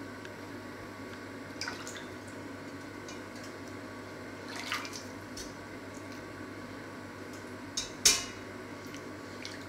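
Peeled potatoes lifted out of a steel bowl of water, with small splashes and drips, and set into a metal steamer basket in a stainless steel pot. A sharp metallic knock on the steamer about eight seconds in is the loudest sound, over a steady low background hum.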